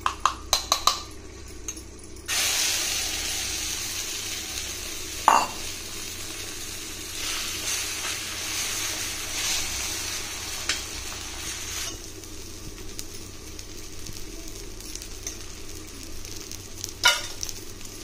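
A few quick clinks, then, about two seconds in, beaten egg poured onto a hot pan starts sizzling: an omelette frying. A knock comes a few seconds later, and the sizzle settles quieter after about twelve seconds.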